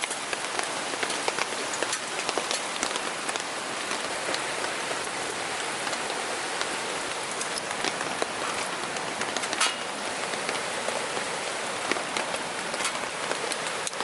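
Heavy rain falling steadily, a dense even hiss with scattered sharp drip impacts.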